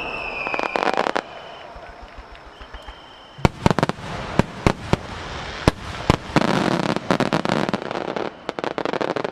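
Starmine fireworks: a crackling rush in the first second and a short lull, then from about three and a half seconds in, shells bursting in rapid succession as a string of sharp bangs over continuous crackling.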